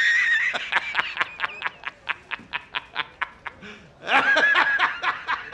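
A man laughing hard: a long high-pitched shriek, then a fast run of short 'ha' bursts about five a second, a second shriek about four seconds in, then more bursts.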